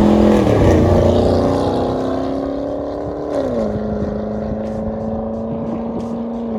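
Car engine driving off under power: its pitch drops sharply about half a second in and again about three and a half seconds in, then holds steady.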